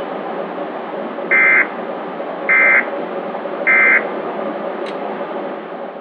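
Emergency Alert System end-of-message (EOM) code: three short bursts of SAME digital data tones about a second apart, over a steady broadcast hiss, marking the end of the alert.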